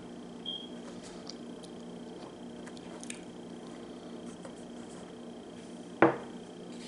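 Hands handling bottles, a spice jar and glassware on a table: a few faint taps, then one sharp, loud knock about six seconds in as an item is set down on the tabletop.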